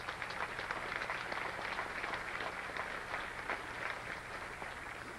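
Audience applauding: many hands clapping together in a dense patter that dies away near the end.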